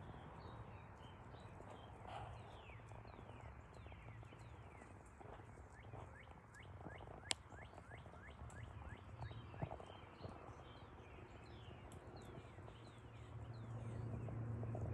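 Quiet pasture sound: a steady run of short falling chirps, two or three a second, with the faint patter of small hooves as Blackbelly lambs run and play. One sharp click comes about seven seconds in, and it grows a little louder near the end.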